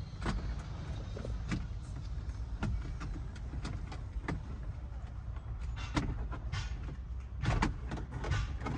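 Plastic dashboard trim clicking and knocking as it is handled and pressed into place, a run of sharp clicks about every half second with a denser cluster near the end, over a steady low rumble.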